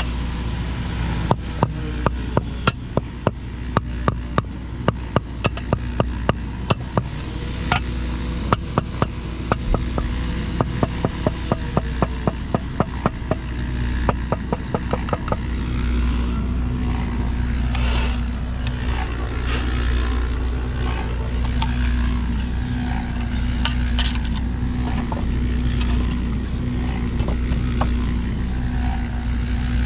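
An engine running steadily throughout, with a run of sharp knocks, about two a second, over the first half that then stop.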